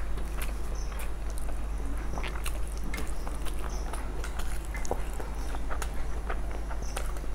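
Close-miked eating sounds: wet chewing and many short mouth clicks and lip smacks as two people eat masala fried rice with their hands from steel plates, over a steady low hum.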